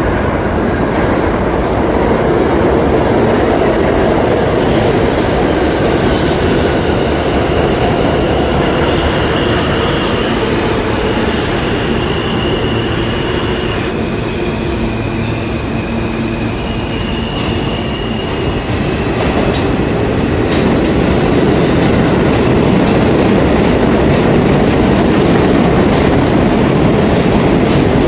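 New York City subway train running on the rails: a loud, steady rumble with rail noise. A few faint, high wheel squeals come through around the middle.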